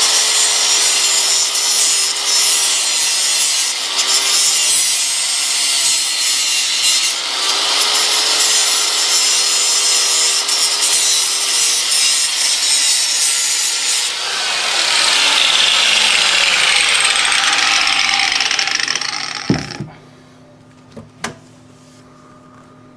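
Chicago Electric angle grinder cutting through the seized metal lock ring of an old garbage disposal, a steady high grinding. Over the last few seconds its pitch drops, and about 20 seconds in it cuts off with a sharp knock, followed by a couple of faint clicks.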